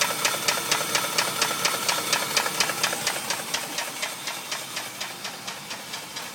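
Used engine in a 2004 Dodge Durango running with a sharp, regular knock, about five to six a second, the knock that marks it as a bad engine. A steady high whine runs along with it and stops about three seconds in.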